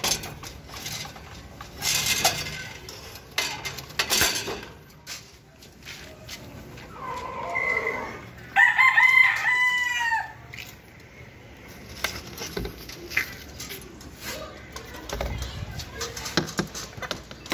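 A rooster crowing once about halfway through: a long cock-a-doodle-doo that rises and ends on a falling note, the loudest sound here. A few brief knocks come in the first few seconds.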